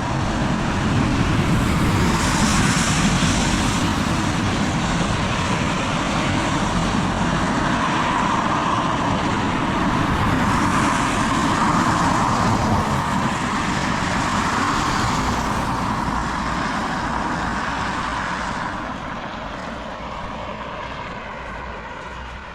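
Vehicle tyres hissing on a wet road in heavy rain, a steady rush of noise that swells and then fades away near the end.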